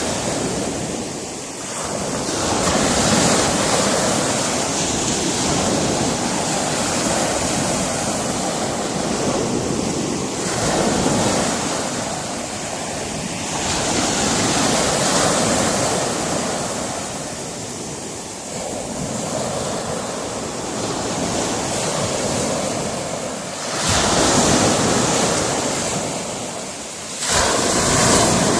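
Sea waves breaking and washing on a rocky shore, the surf rising and falling in swells every few seconds, with a sharp crash near the end. Some wind noise on the microphone.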